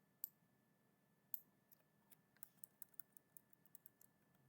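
Faint clicks of a computer mouse and keyboard: two sharper clicks in the first second and a half, then a run of light taps about four a second.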